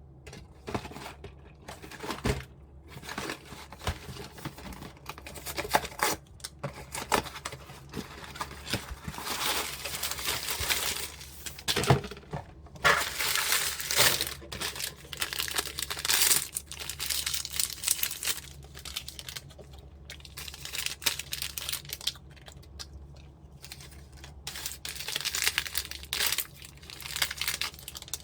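Packaging being crinkled and torn, in irregular rustles and crackles with short pauses.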